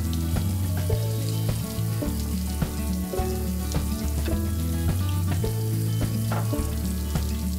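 Background music with a steady bass line and held chords, under a constant crackly hiss.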